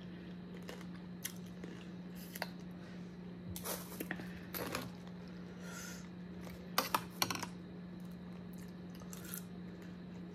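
Boiled crawfish being peeled by hand and picked through in a pan with a metal spoon: scattered small clicks and crackles of shell and spoon, with a cluster of sharper clicks about seven seconds in. A steady low hum runs underneath.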